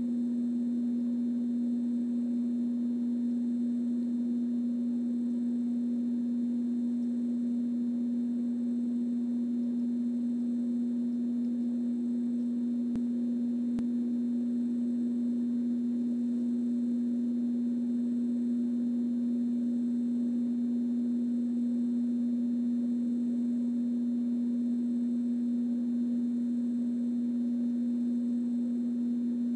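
Steady electrical hum: one unchanging low tone, with two faint clicks about halfway through.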